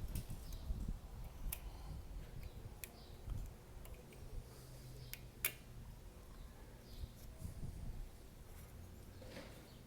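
A few sharp clicks and softer taps, spread out, over a faint low rumble: tools and drum-brake shoes and springs being handled during hand fitting.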